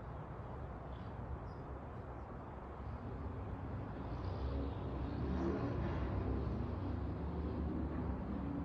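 A vehicle passing by outdoors: a low engine rumble that swells about three seconds in, is loudest in the middle, and eases slightly near the end.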